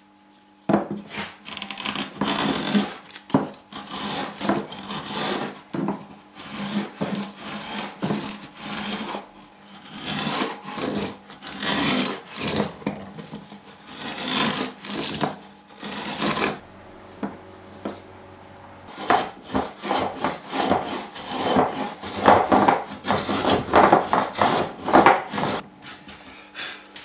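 Hand router plane shaving a groove in soft wood: a run of short scraping strokes about a second apart, with a pause of a couple of seconds past the middle, then more strokes.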